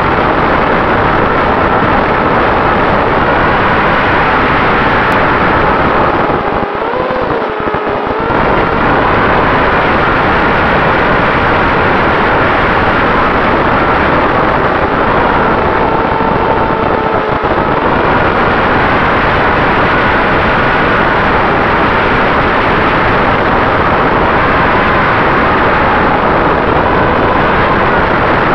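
Wind rush and the whine of a small electric RC plane's motor and propeller, heard from the plane's own onboard camera in flight. The whine wavers up and down in pitch as the throttle changes, and dips briefly about seven seconds in.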